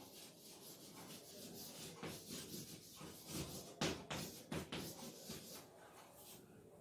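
Chalk writing on a blackboard: faint, irregular short scratches and taps of the chalk stick, busiest from about two to five and a half seconds in.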